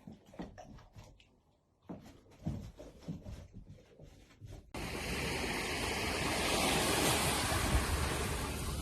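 Faint scattered clicks and taps, then, after an abrupt cut about two-thirds of the way in, a loud steady rushing noise of wind or surf.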